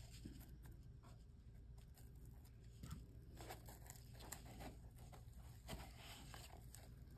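Near silence, with faint scattered rustles and light ticks of hands pressing fur fabric onto the hot-glued edge of a mask snoot.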